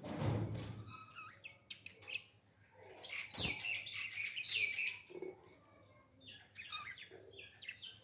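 Caged parakeets chirping and chattering in short high calls, busiest and loudest about three to five seconds in. A thump sounds at the start and another about three and a half seconds in.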